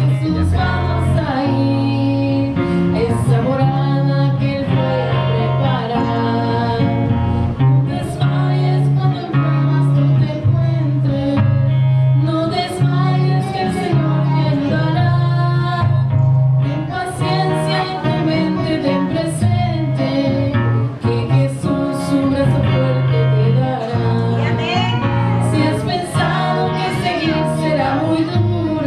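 A live worship song: a man and a young woman singing into microphones over a strummed acoustic guitar.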